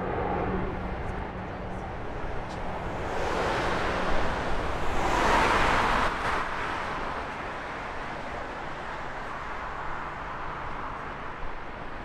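Jet engine noise of a wide-body airliner taking off, a broad rushing sound that swells to its loudest about five seconds in and then fades away over a steady low rumble.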